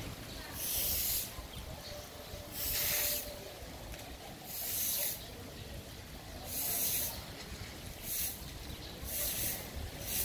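Six short bursts of hissing, each about half a second long, coming roughly every one and a half to two seconds over a low steady rumble.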